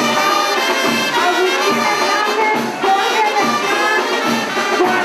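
Dance music led by brass, with trumpets and trombones playing a melody.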